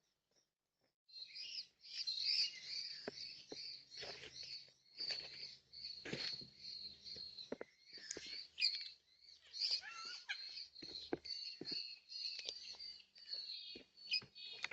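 Several birds chirping and twittering in dense, overlapping calls, with short sharp clicks mixed in, starting about a second in.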